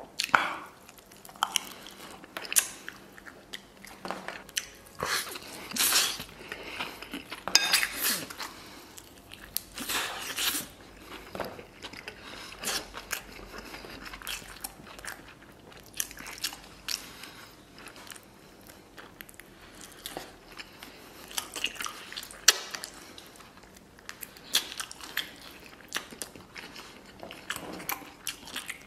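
A person biting and chewing tender stewed lamb rib meat that comes away easily from the bone, in irregular bites and chews with short sharp clicks throughout.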